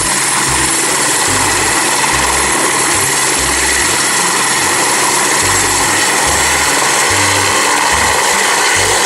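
Airbus AS350 Écureuil (Esquilo) helicopter with its turbine and rotors running steadily at close range, a constant high turbine whine over a chopping low rotor rumble, as it lifts off.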